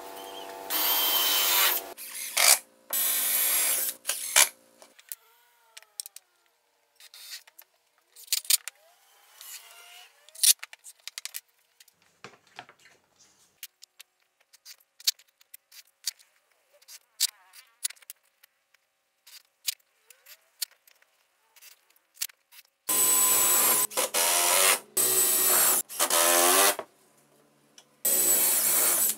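Cordless drill driving screws into wood in short whirring bursts, a couple near the start and a run of several near the end, with scattered knocks and clatter of wood pieces being handled between them.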